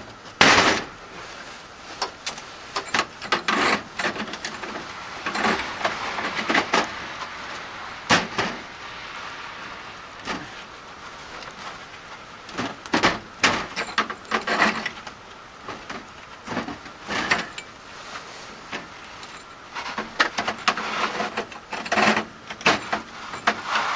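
Hand-tool work on house trim: irregular knocks, clicks and scraping, with a sharp crack just after the start and further knocks spread through.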